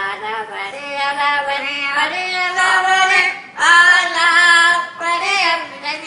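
Amazon parrots singing in a human-like voice: a run of long held notes that step up and down in pitch, with a short break about three and a half seconds in.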